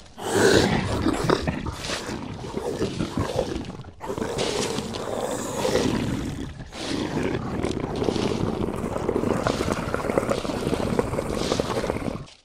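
Long, rough roaring calls, presented as a sasquatch recording, with short breaks about four and seven seconds in.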